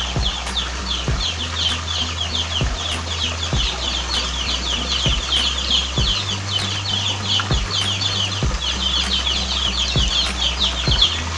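Birds chirping nonstop: many short, high, falling chirps overlapping, over a low hum with faint clicks.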